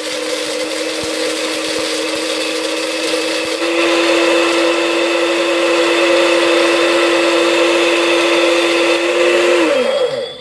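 Magic Bullet blender motor running steadily and a bit noisily as it grinds whole black peppercorns in its small cup. Its pitch steps up a little about three and a half seconds in, then falls as the motor winds down and stops near the end.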